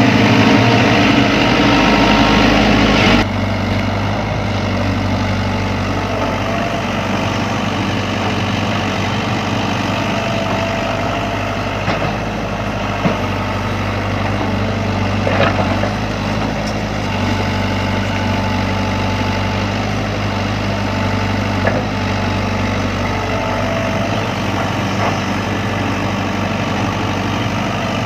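Sany hydraulic excavator's diesel engine running steadily, louder for about the first three seconds and then settling to a lower, even level, with a few small knocks along the way.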